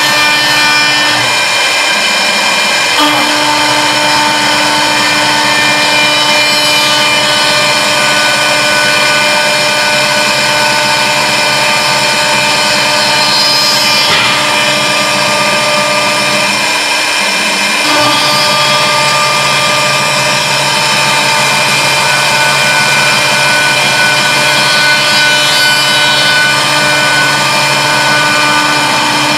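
CNC wood lathe carving a spiral twist into a turning wooden baluster with its router spindle: a loud, steady machine whine of several tones over the hiss of cutting wood. The lower tones drop away briefly a couple of seconds in and again past the middle before returning.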